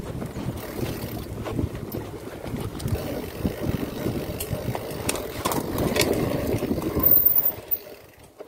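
Mountain bike rolling fast over a bumpy dirt trail: tyre rumble with the rattle and knocking of the bike over roots and ruts, growing louder in the middle and dropping away near the end.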